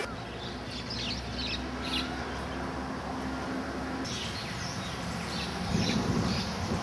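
Small birds chirping, short high calls repeated again and again over a steady low hum; a louder low rumble comes in near the end.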